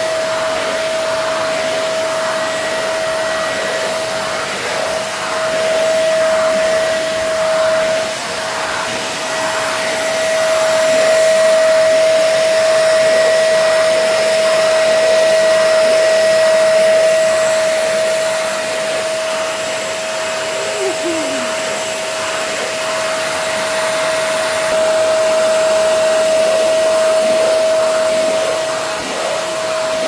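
Ferrex 30L 1200 W wet and dry vacuum cleaner running while its floor nozzle is pushed over carpet: a steady rush of suction air with a strong steady motor whine, rising and falling a little in loudness as the tool moves.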